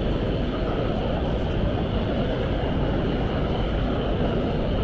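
Steady, even background din of a large indoor exhibition hall, with no distinct events.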